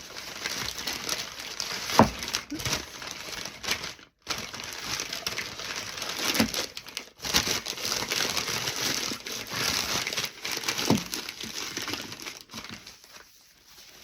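Gift wrapping crinkling and crumpling in the hands as a package is unwrapped, nearly continuous with two brief pauses and a few light knocks.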